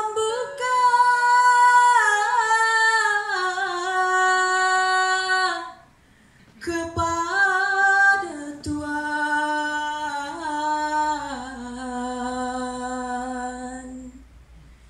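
A woman singing a slow Malay welcome song in long, drawn-out, ornamented notes. There are two phrases, with a short break about six seconds in, and the second settles lower and fades away near the end.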